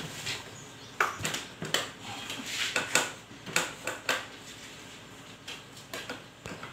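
Handling noises from a hands-on back and body manipulation: a scatter of short clicks and soft taps, about ten over several seconds, the loudest about a second in.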